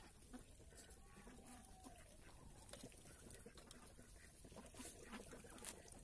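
Near silence with faint sounds of a Muscovy duck flock feeding: scattered small clicks and a soft call near the start.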